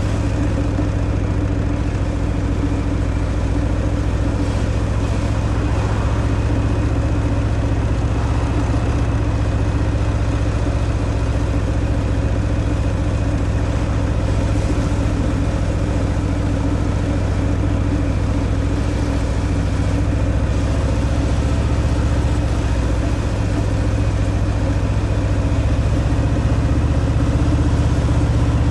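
Harley-Davidson Fat Boy's Milwaukee-Eight 114 V-twin running through its stock exhaust at a steady engine speed, getting slightly louder near the end.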